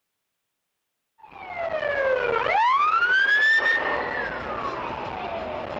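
Emergency vehicle siren wailing. It starts about a second in, dips in pitch, sweeps sharply up, then slides slowly back down, over a steady background noise.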